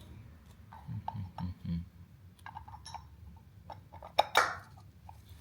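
Small metal motor parts clicking and clinking as they are handled and fitted together, with a sharp, louder clink and a brief scrape about four seconds in.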